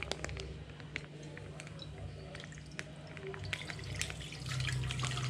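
Milk being poured from a container into a pan, a steady liquid pour over a low steady hum.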